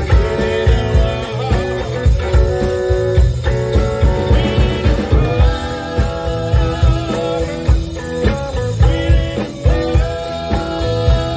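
Live blues band playing an instrumental passage: electric guitar lead with bending notes over bass guitar and a steady drum beat.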